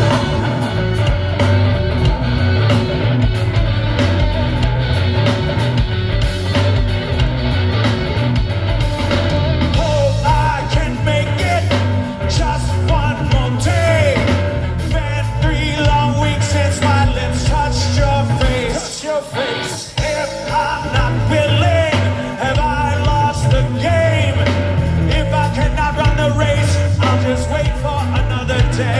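Live rock band playing through a loud PA, heard from the crowd: electric guitars, bass and drums with a lead vocal. The bass and drums drop out for about a second roughly two-thirds of the way through.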